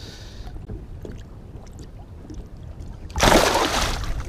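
A released muskellunge kicks off from the side of the boat with one loud splash about three seconds in, lasting about a second and throwing water over the angler. Before it, only a quiet low rumble.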